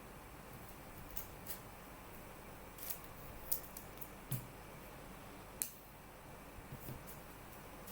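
Trading cards and their packaging being handled: a dozen or so light, sharp clicks and snips at irregular intervals, the sharpest about five and a half seconds in.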